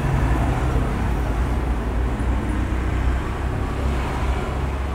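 Steady low rumble with an even hiss over it: constant background noise, level throughout.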